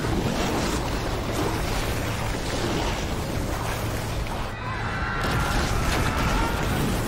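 Cartoon sound effects of a huge impact's aftermath: a steady, dense rumble of a rushing shockwave and flying debris, with music beneath it and thin high tones a few seconds in.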